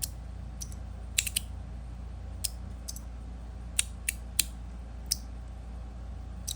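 Stainless steel magnetic fidget slider clicking: sharp metal clicks at irregular intervals, about ten in all, as the strong magnets snap the slides into place.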